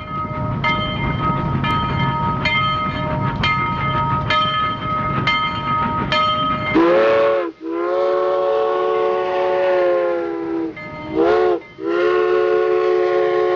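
Train running with a regular clack over the rail joints about once a second and a steady whine. About halfway through, its horn sounds in four blasts: a short one, a long one, a brief one and another long one.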